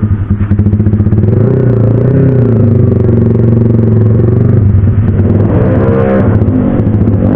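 Sport motorcycle's engine running at low revs, pulsing in the first second and then steady. About five seconds in its pitch rises briefly and falls back as the bike is ridden off.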